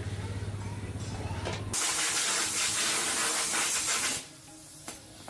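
A low pulsing hum, then about two seconds in a loud spraying hiss that lasts about two and a half seconds and stops abruptly.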